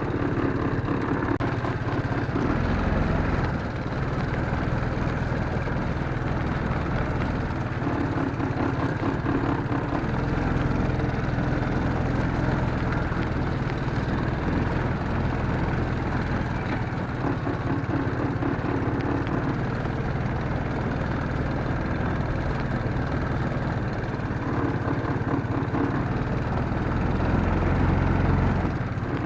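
Engine of an off-road ranch vehicle (four-wheeler or Jeep) running steadily at low speed while slowly driving cattle, heard from on board.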